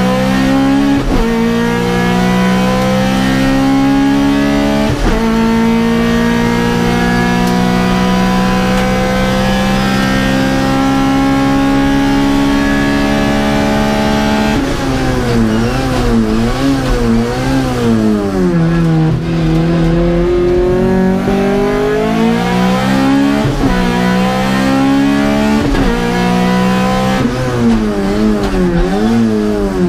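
Honda Civic VTi Group A race car's four-cylinder engine at full throttle, heard from inside the stripped cabin: upshifts about one and five seconds in, then a long, slow climb in revs in a high gear. About halfway the revs start swinging rapidly up and down through downshifts and corners, followed by several short pulls with quick gearshifts near the end.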